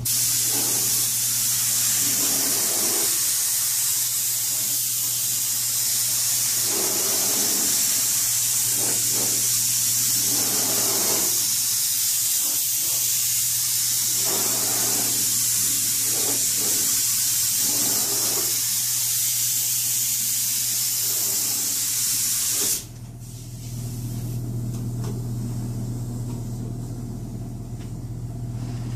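Air-powered gravity-feed paint spray gun hissing steadily as it lays down a heavy final coat of paint, then cutting off suddenly near the end when the trigger is released. A steady low hum runs underneath and is plain once the hiss stops.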